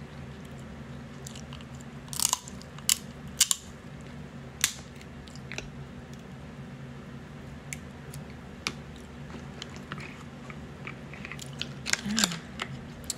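Cooked crab leg shells cracking and snapping as they are broken open by hand and the meat is picked out, with close-up chewing. The sharp cracks come in a group about two to five seconds in and again in a cluster near the end, over a steady low hum.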